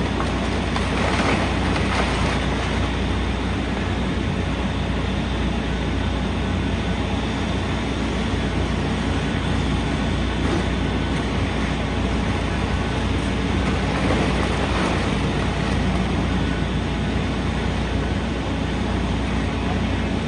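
Heavy diesel machinery running steadily, a continuous engine rumble with brief louder swells about a second in and again around fourteen seconds in.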